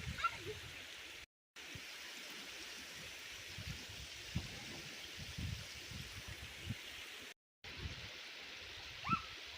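Small creek rapids rushing steadily, with scattered low thuds and a couple of faint, brief high cries. The sound cuts out briefly twice.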